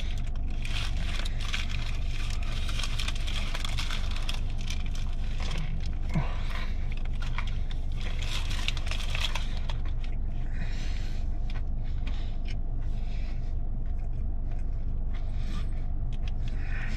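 Crackling and rustling from a fried chicken sandwich and its paper wrapper being handled, dense for the first ten seconds or so and then sparser clicks. A steady low hum runs underneath.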